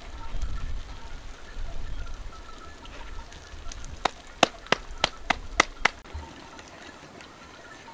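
A quick run of seven sharp knocks or taps, about three or four a second, over a low rumble that stops about six seconds in.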